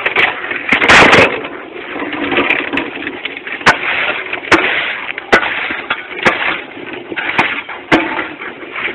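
Concrete block making machine filling its mould with gravelly concrete mix: a loud rattling clatter of stones, with a heavy rush about a second in and sharp metal knocks every second or so after that.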